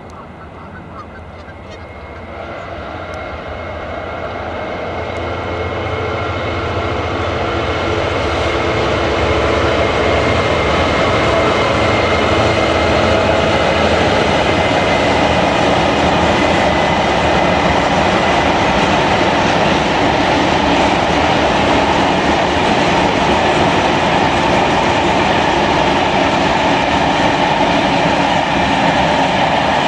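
Class 66 diesel-electric freight locomotive, its two-stroke V12 engine working under power, approaching and passing with a long train of hopper wagons. The sound builds over the first several seconds, then holds as a steady loud engine rumble mixed with the rattle of the rolling wagons.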